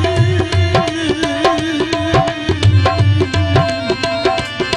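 Live folk music without singing: a harmonium plays a sustained, wavering melody over a fast, steady beat on a dholak hand drum.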